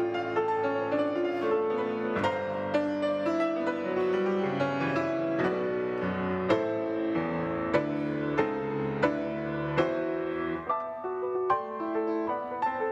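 Grand piano played solo: a flowing piece of struck chords and melody notes that ring on and overlap.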